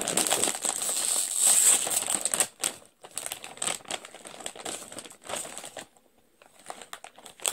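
A foil-lined potato-chip bag crinkling loudly as it is torn and pulled open, for about two and a half seconds, then softer, scattered rustling of the bag as it is handled.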